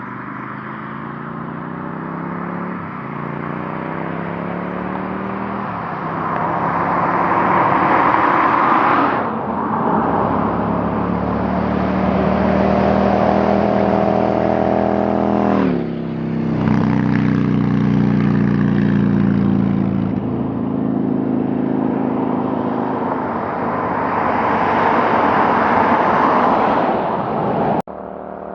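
Yamaha XVS1100 Drag Star's V-twin with loud aftermarket pipes under way, the exhaust note climbing in pitch through the gears and dropping back twice as the throttle is rolled off. A rushing noise swells with it when the engine pulls hardest, and the sound cuts off suddenly near the end.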